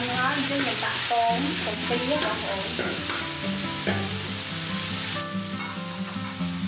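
Sliced pork sizzling in hot oil in a steel wok while a metal spatula stirs and scrapes it across the pan. The sizzle quietens about five seconds in.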